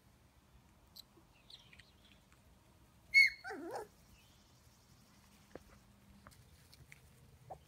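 Four-week-old Sheltie puppy giving one sharp high-pitched yelp about three seconds in, trailing off into a brief falling whimper. Otherwise quiet apart from a few faint ticks.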